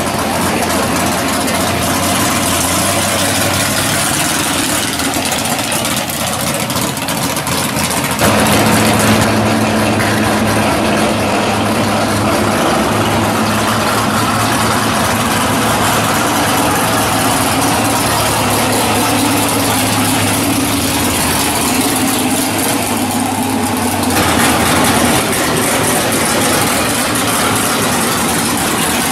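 Drag car engines idling as the cars creep slowly through the pits. First comes a black Studebaker-style gasser; after a cut about eight seconds in, a blue Oldsmobile Cutlass drag car idles louder and steadier, and the sound shifts again about twenty-four seconds in.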